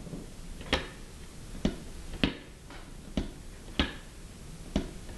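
Curved plastic feet of a gravity-powered LEGO walking duck tapping the slope as the toy rocks and steps: sharp clicks about every half second to a second, about seven in all.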